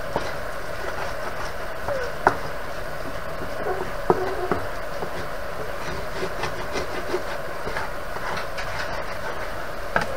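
Wooden spoon stirring and turning fried rice in a non-stick frying pan over a steady frying sizzle, with a few sharp knocks of the spoon against the pan.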